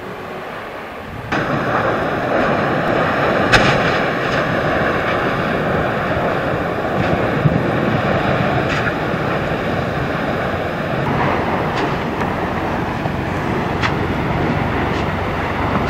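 Erupting lava fountain at a volcanic vent, a dense steady rushing rumble that cuts in suddenly about a second in. Sharp cracks and bangs from bursting gas and spatter come every few seconds, the loudest a few seconds in.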